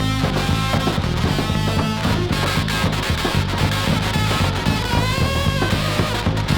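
Hard rock record playing from vinyl: electric guitar over a steady bass and drum beat.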